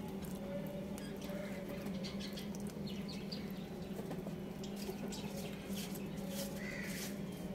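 Chickens pecking cooked rice from a clay dish: irregular sharp taps of beaks striking the dish, coming thicker near the end, over a steady low hum.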